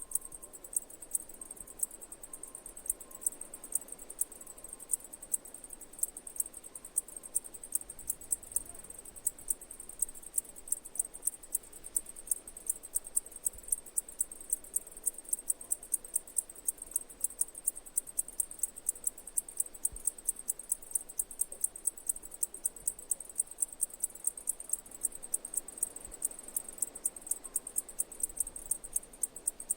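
Cicadas singing: a shrill, steady high buzz broken by sharp pulsing clicks several times a second.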